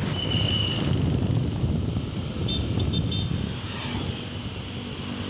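Yamaha Jupiter MX motorcycle's single-cylinder four-stroke engine running steadily while riding, mixed with wind rumbling on the phone's microphone. A few short high chirps sound about halfway through.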